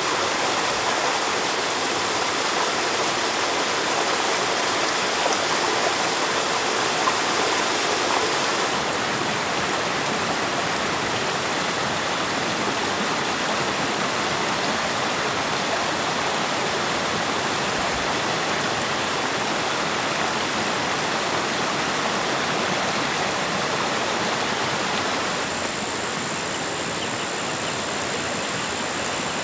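Steady rush of running water. About nine seconds in, the hiss suddenly loses its brightest part. Near the end it dips a little and a faint, steady high-pitched tone joins it.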